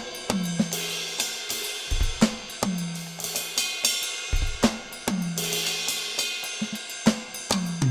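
Electronic drum kit (2Box Drumit 5 MKII) playing a steady groove: bass drum and snare hits with hi-hat, and a cymbal crash about every two and a half seconds.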